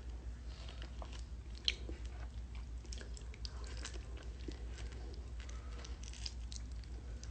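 A person chewing and biting into a juicy mango: a run of small wet clicks, with one sharper click about a second and a half in, over a low steady hum.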